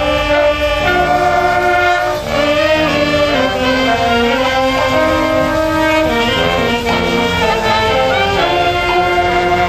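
School marching band playing: saxophones, trumpets and other brass in long held chords, over bass and snare drums.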